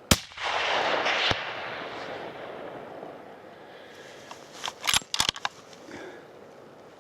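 A single hunting-rifle shot fired at a bedded bull moose, followed by a rolling echo that fades over about two seconds. Around five seconds in comes a quick run of sharp metallic clicks as the rifle's bolt is worked to chamber the next round.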